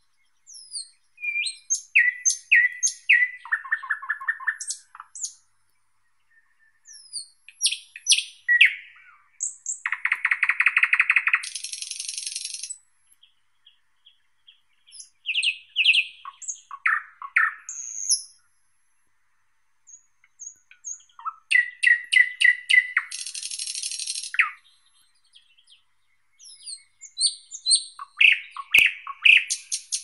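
Thrush nightingale singing: five phrases with pauses of a second or two between them, each made of rapid runs of repeated clicking and whistled notes, with a dense fast trill in the second and fourth phrases.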